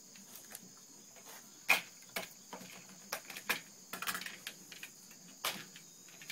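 Steady high-pitched insect drone over a range field, with scattered short clicks and knocks, the loudest about two seconds in.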